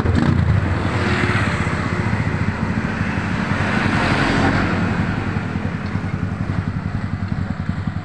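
Motorcycle engine idling close by, a steady low throb, while a passing vehicle's noise swells over the first few seconds and fades away.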